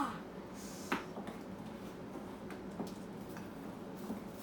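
Spoon stirring and scraping a thick slime mixture of glue, shaving cream, baking soda, salt and vinegar, with faint squishes and a few light clicks, the sharpest about a second in.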